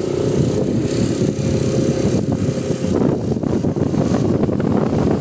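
Wind buffeting the microphone over a running vehicle engine. A steady engine tone holds for about the first three seconds, then gives way to choppy gusts.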